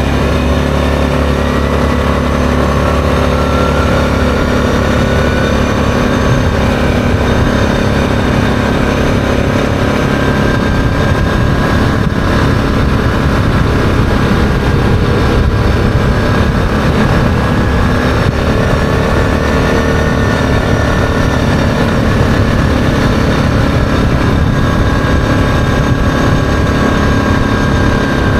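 ATV engine running under way at cruising speed. Its pitch climbs a little in the first few seconds, then holds steady.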